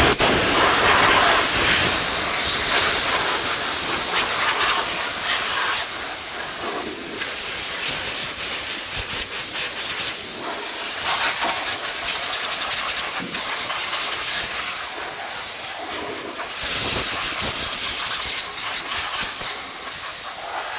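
Compressed-air blow nozzle sending a continuous, loud hissing jet of air into the dusty interior of an anesthesia machine, the hiss wavering a little as the nozzle is moved around the circuit boards and pump.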